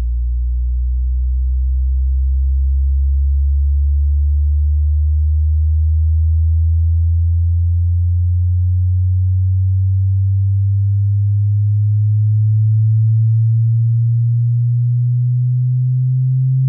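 Logitech Z623 subwoofer playing a bass frequency-sweep test tone: a pure low tone sliding slowly and steadily upward in pitch through the deep bass.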